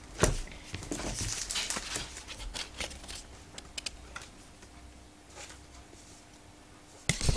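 Pokémon trading cards being handled and slid against one another: light rustling and soft clicks, busiest in the first three seconds, with a sharper knock just before the end.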